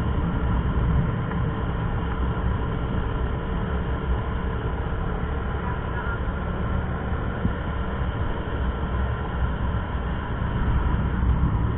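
Motorcycle engine running steadily while riding, with a constant low wind rumble on the microphone.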